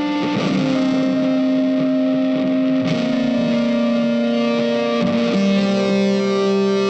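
Background music led by a guitar with effects, holding long notes that change about every two to three seconds.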